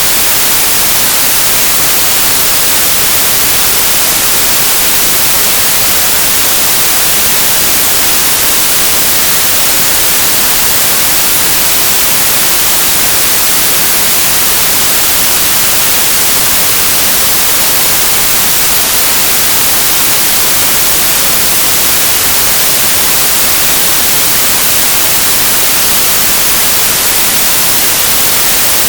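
Steady, loud synthesized white noise: an even, bright hiss across the whole range, with no changes or events.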